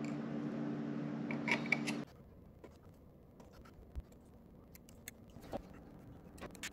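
A steady electrical hum with a few light clicks, which cuts off abruptly about two seconds in. After that it is quiet, with scattered light clicks and taps of small tools and laptop parts being handled.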